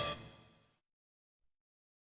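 The last notes of a Nokia phone's electronic ringtone fade out over about half a second, followed by silence.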